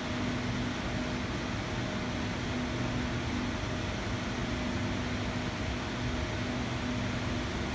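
Electric suburban train approaching at a distance: a steady rumble with a faint low hum on and off.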